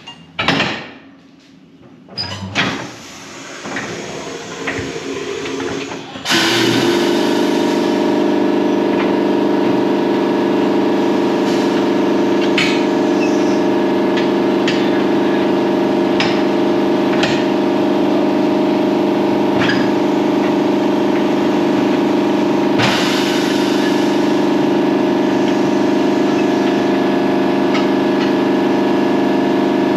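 Metal clanks of a tire bar working the tire on a center-post tire changer. About six seconds in, a shop air compressor's motor starts abruptly and runs with a loud, steady hum, with occasional light clinks over it.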